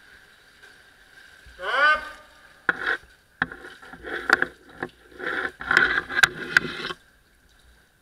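Poles knocking and scraping while being worked in a water-filled brick sewer channel, with sloshing water. An irregular run of sharp knocks and splashes starts about three seconds in and stops about a second before the end. A short rising squeal comes just before, and a faint steady high whine runs underneath.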